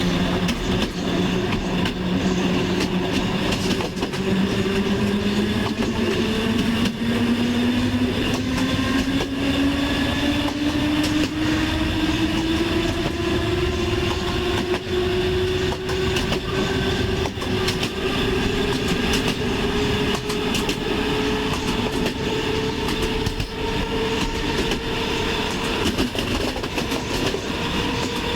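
Train running on the rails, with a whine that rises steadily in pitch throughout, typical of an electric train's traction motors as it gathers speed. Frequent sharp clicks from the wheels on the track sound over a steady rumble.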